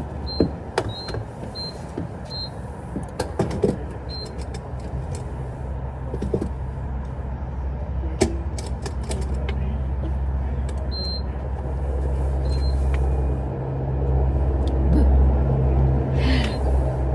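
Steady low car engine and road rumble heard from inside the cabin, growing louder near the end, with a few short high beeps and light clicks.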